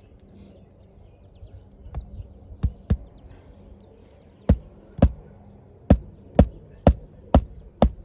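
Hammer driving nails into roof shingles: about ten sharp strikes, a few scattered at first, then steady at about two a second from the middle on.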